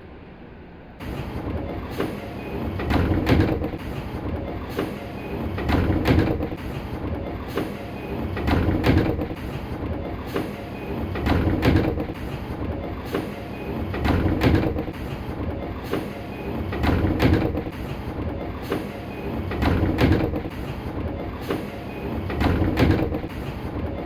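The air-operated sliding doors of a JR West 205 series 1000 subseries train caught in a 'bounce': they close, knock, and slide back open again in a repeating cycle about every three seconds, eight times over, with a short door chime each cycle. The fault was set off by a passenger forcing their way aboard at the last moment.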